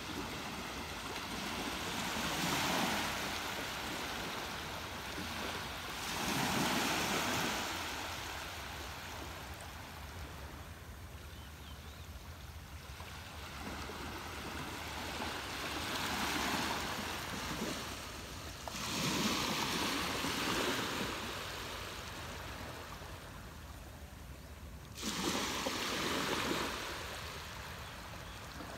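Ocean waves breaking and washing ashore: a steady rush of surf that swells five times, each surge rising and fading over a few seconds, with the last one coming in suddenly near the end.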